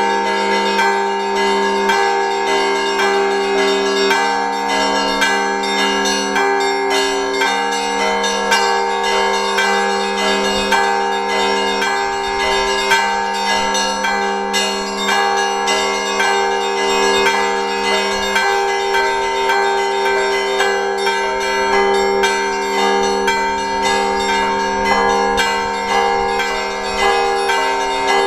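Russian Orthodox church bells rung together by two bell ringers in a festive Sunday peal after the late Liturgy. Small bells are struck in a quick, dense rhythm over the long ringing tones of the larger bells.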